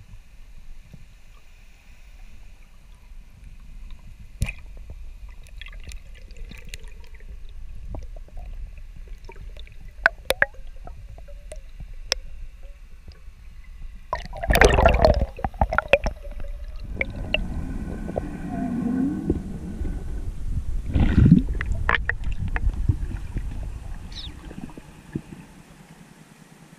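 Water heard through an underwater camera during a freshwater spearfishing dive: a steady low rumble with scattered sharp clicks, and loud gurgling bubble bursts about halfway through and again about two-thirds through.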